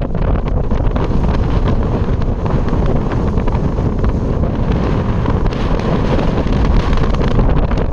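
Strong wind buffeting the microphone: a loud, steady rumbling blast with no break.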